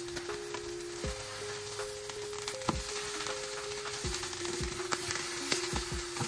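Thick beef steaks sizzling in hot oil in a nonstick frying pan as they are seared quickly on each side, with several sharp clicks of a fork against the pan as the steaks are turned.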